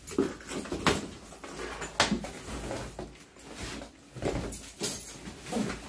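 Vacuum cleaner's cardboard shipping box being handled and opened: scattered sharp knocks and taps with rustling and scraping in between.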